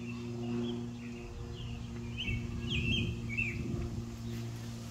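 Cessna 182Q Skylane's six-cylinder piston engine and propeller droning steadily overhead, while small birds chirp several times through the middle. A low rumble on the microphone rises under them in the middle.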